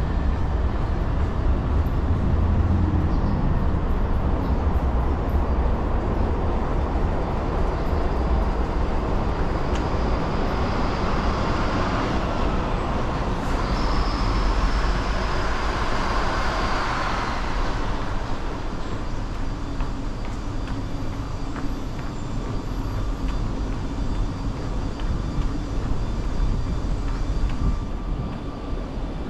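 Continuous low rumble of passing vehicles. It swells in the middle with a high whine that fades away after about seventeen seconds.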